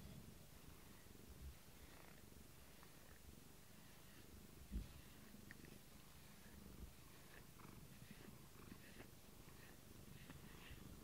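Tabby cat purring faintly as it is brushed with a rubber grooming brush, with a thump about five seconds in.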